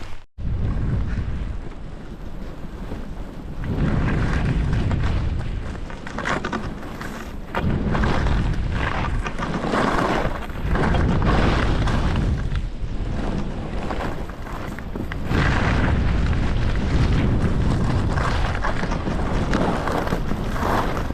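Wind buffeting the microphone of a camera worn by a skier moving downhill: a heavy rumble that swells and eases in waves. The hiss of skis running through snow sits beneath it, and the sound drops out briefly just after the start.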